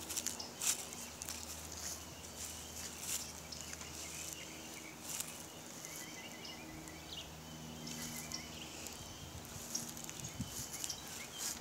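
Quiet backyard ambience with scattered light crunching clicks of footsteps, and a low steady hum that comes and goes.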